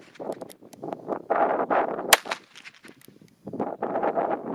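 A .22 Heritage Rough Rider single-action revolver with a 16-inch barrel fired once, a sharp crack about two seconds in. Small clicks and a rushing noise come before and after it.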